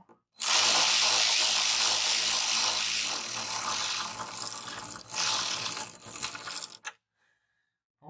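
Power ratchet spinning a nut down onto an M6 bolt that clamps the striker bracket to the rear hatch glass. It runs without a break, loudest for the first couple of seconds, eases off, runs harder again briefly about five seconds in, and stops about a second before the end.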